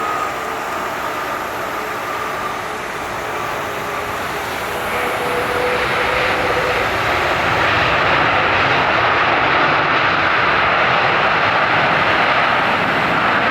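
Jet airliner's engines running with a faint steady whine early on, the noise growing louder about halfway through as the aircraft comes closer.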